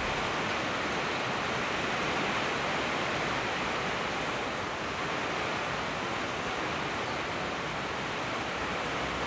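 Rain falling steadily on a wet paved road: an even hiss of drops with no change in strength.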